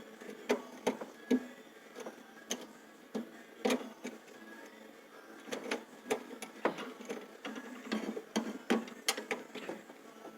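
Irregular clicks, taps and knocks of hand tools and wiring being handled at an electric water heater's electrical connection.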